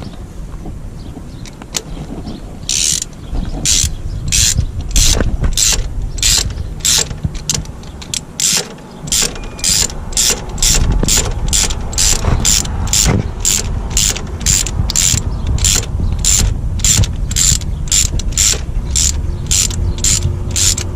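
Hand ratchet with extension and spark plug socket clicking in quick, even back-and-forth strokes, a little over two a second, from about three seconds in: a spark plug being turned into the cylinder head of the 2.2L four-cylinder.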